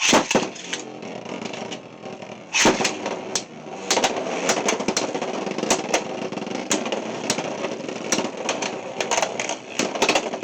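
Two Beyblade X spinning tops launched into a plastic stadium, then spinning and grinding against each other with many sharp clacks as they collide, one hard hit about two and a half seconds in.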